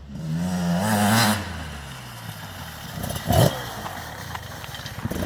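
Brand-new Beta 300RR single-cylinder two-stroke engine running, blipped about a second in so that its pitch rises and falls back, with a short sharp burst a little past three seconds and another near the end. It is running at zero hours, its noise being checked for anything abnormal.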